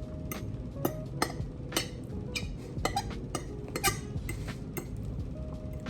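Cutlery clinking against a plate while eating, about a dozen sharp, irregular clinks.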